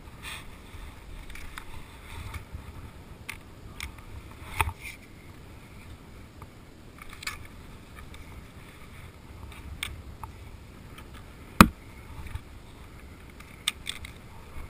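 Scattered clicks and knocks as gear and the camera are handled, over a steady low rumble; one sharp knock about two-thirds of the way through is the loudest.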